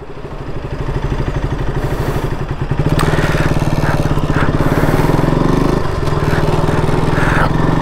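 Sport motorcycle engine pulling away with rider and pillion aboard. The revs climb over the first three seconds, then it runs louder and steadier, with a brief dip near six seconds.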